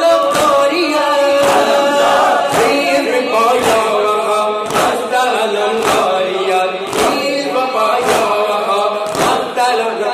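Noha (Shia mourning elegy) sung into a microphone by a lead reciter, with a crowd of men chanting along. Under it, a steady beat of matam, hands slapping chests about once a second.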